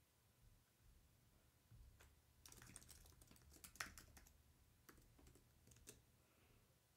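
Faint computer keyboard typing: scattered, irregular key clicks starting about two seconds in and stopping near the end.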